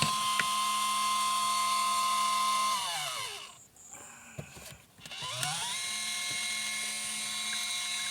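Small electric spin-dryer motor of a 12 V portable washing machine running with a steady whine. It winds down to a stop about three seconds in, then spins back up about two seconds later and runs steadily again.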